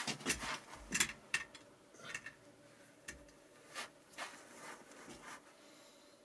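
Quiet, scattered light clicks, taps and rubbing, most of them in the first second and a half, like close handling noise.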